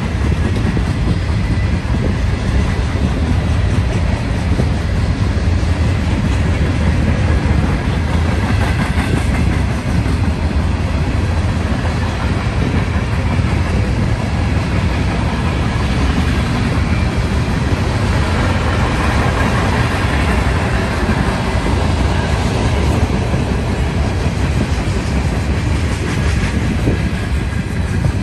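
Freight train of open-top gondola cars rolling past: a steady, loud rumble of steel wheels on rail.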